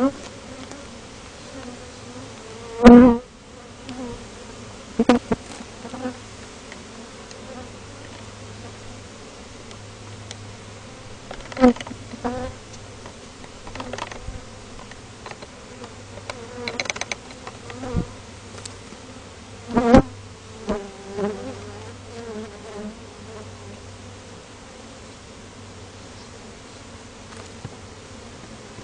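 Swarm of Africanized honeybees buzzing steadily around their hive, stirred up and defensive. Several times, most loudly about 3 s in and about 20 s in, a single bee buzzes loudly close to or against the microphone.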